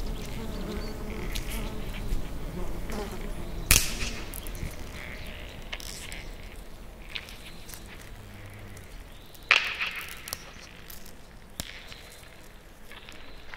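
A wasp buzzing in flight, a wavering hum that fades out after about four seconds. Two sharp knocks or rustles, about four and nine and a half seconds in, are the loudest sounds.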